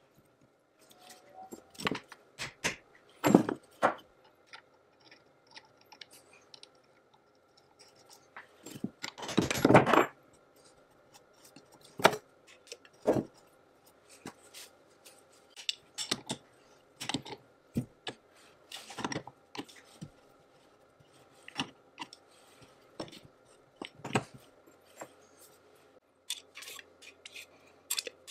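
Steel and cast-iron parts of an antique lathe's slide rest being handled and fitted together by hand: scattered clinks, taps and knocks of metal on metal, with a longer scrape about nine seconds in.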